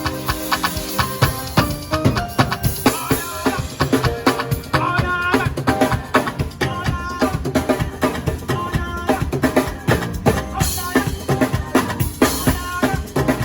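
A band playing live music, with a drum kit keeping a fast, busy beat on bass drum and snare under melodic instruments.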